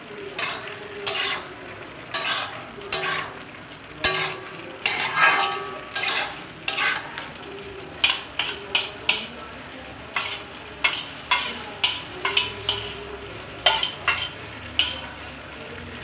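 A steel spatula and spoon scraping and clinking against a black iron pot and a steel plate while pork pieces, potato and spices fry and sizzle. The strokes come irregularly, about one or two a second, and grow more frequent in the second half.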